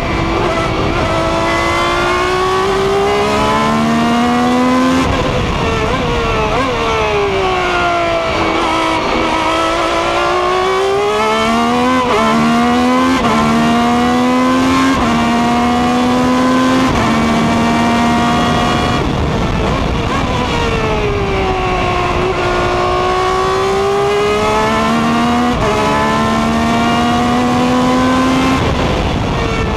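Ferrari 333 SP's 4.0-litre V12 racing engine at speed, recorded on board in the cockpit: the pitch climbs as it accelerates with sudden steps at each gearchange, and twice sinks and rises again as the car slows and picks up speed.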